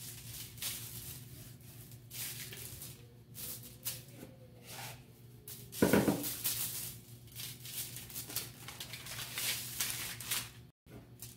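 Hands rubbing a dry spice rub into raw baby back ribs: repeated rustling, scraping and squishing strokes of meat against its pan, with a short, louder knock about six seconds in. A steady low hum runs underneath.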